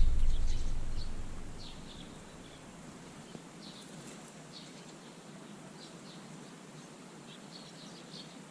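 Small garden birds chirping: short high calls scattered through, several in quick runs. A low rumble fades out over the first two seconds.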